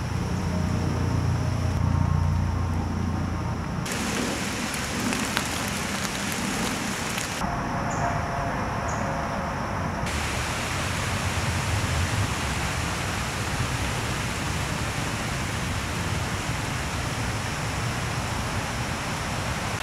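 Steady outdoor hiss with a low rumble in the first few seconds. Its character changes abruptly about four, seven and ten seconds in.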